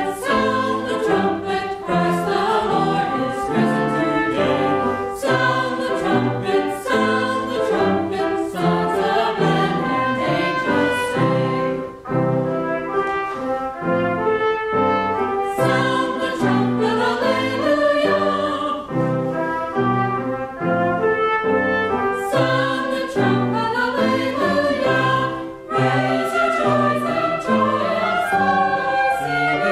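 Small mixed-voice church choir singing an anthem in parts, accompanied by trumpet.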